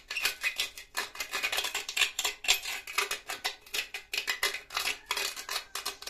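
A thin rod scraping and grinding around the rim of a hole cut in an unglazed clay pot, in quick repeated strokes, smoothing the rough edge.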